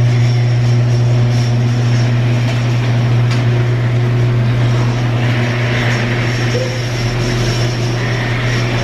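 A vehicle engine running steadily, giving a loud, unbroken low drone with fainter steady tones above it.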